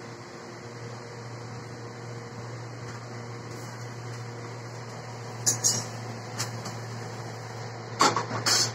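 Steady low hum of kitchen appliances running. A few short clinks and knocks come from about five seconds in, the loudest two near the end.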